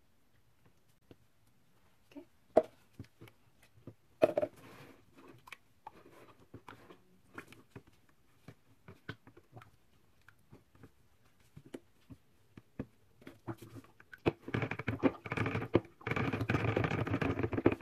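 Silicone spatula knocking and scraping against a plastic pitcher while stirring cold-process soap oils: scattered light clicks and knocks, turning into a louder, continuous scraping rustle over the last few seconds.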